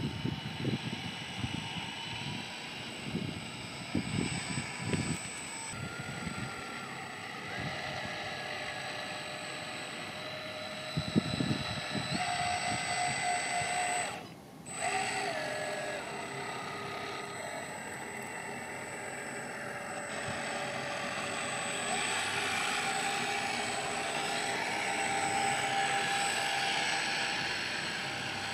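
A radio-controlled model ship's motor whines steadily, its pitch shifting in steps several times. Wind gusts on the microphone in the first few seconds. The sound briefly drops out about halfway through.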